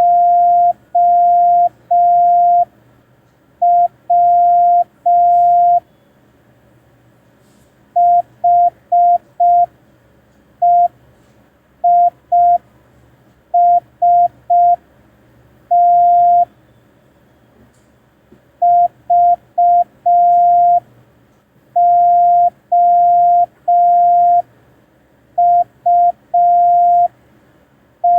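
Morse code practice tone: a single steady beep keyed on and off in slow dits and dahs, with longer pauses between the letters, sent as a copying exercise.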